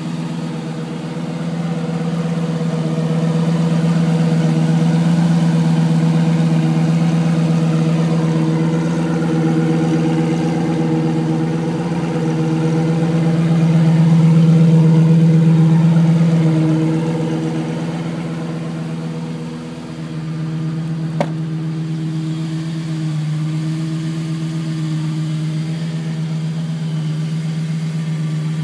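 Lamborghini Gallardo Superleggera's V10 engine idling steadily, growing louder for a few seconds midway. One sharp click about three quarters of the way in.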